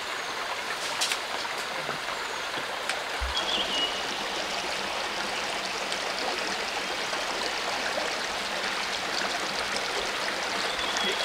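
Forest water stream flowing, a steady even rush of water, with a few faint clicks over it.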